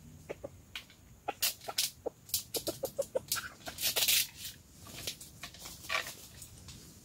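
A rooster clucking in short notes among sharp clicks and rattles of its small cage being handled. A loud burst of scuffling comes about four seconds in as the bird is let out onto dry leaves, and one more call follows near the end.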